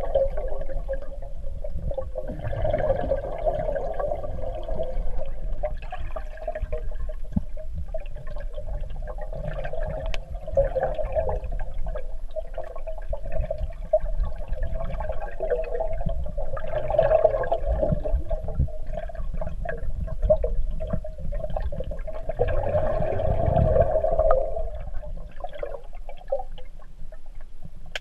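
Underwater ambience in a swimming pool picked up by an underwater camera: a steady hum with churning water and bubble noise that swells louder several times, and scattered small clicks.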